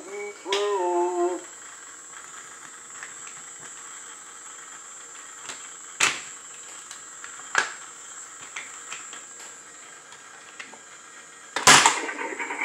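A brief electronic sound phrase from a talking toy boat's sound chip at the start. Then scattered clicks of plastic toy track and trains being handled, and a loud plastic clatter near the end as the toy bridge tower is pressed down.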